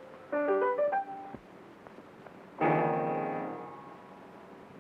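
Piano: a quick run of short notes, a pause, then a loud chord struck about two and a half seconds in and left to ring and fade.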